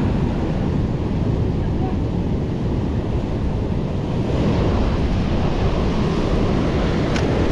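Ocean surf breaking and washing over rocks in a steady loud rush, with wind buffeting the microphone. The wash grows brighter about four seconds in.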